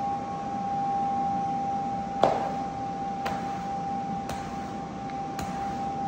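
A machine running with a steady high whine over a low hum, with a sharp click about once a second; the loudest click comes a little over two seconds in.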